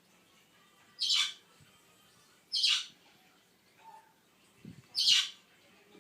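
African grey parrot chick giving three short, raspy squawks, about a second in, then about a second and a half later, then near the end.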